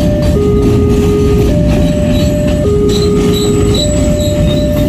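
Container freight train rolling through a level crossing with a heavy, steady rumble of wheels on rail, and a few short high wheel squeals in the second half. Over it, the crossing's electronic warning alarm alternates between a low tone and a higher tone, each held a little over a second.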